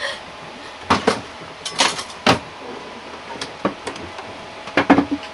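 A run of sharp knocks and clatters as galley utensils and lockers are handled and stowed: a few bangs about a second in, a cluster around two seconds, and the loudest pair near the end.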